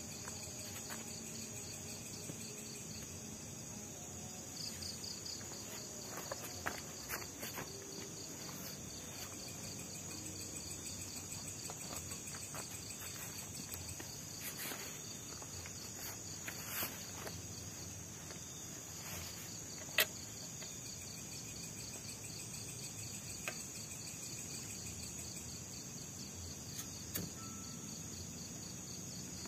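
Night insect chorus: crickets chirping steadily in a continuous high-pitched drone with a fast pulsing trill beneath it. Scattered light clicks and knocks of camping cookware being handled, the sharpest about two-thirds of the way through.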